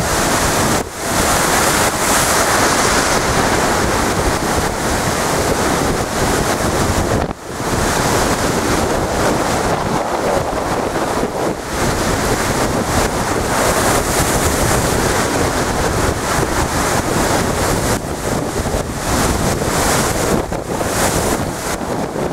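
Storm surf breaking and surging against a sea wall, a loud, continuous rush of water with wind buffeting the microphone.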